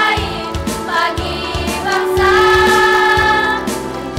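A women's choir singing together in parts, holding one long sustained chord from about two seconds in until shortly before the end.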